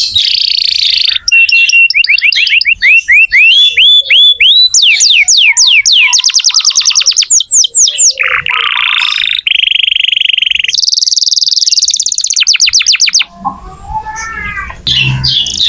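Domestic canary singing a long, loud song of rapid trills, switching every second or two between fast runs of sweeping whistled notes and buzzy rolls. The song drops to softer, quieter notes about four-fifths of the way through, then picks up again near the end.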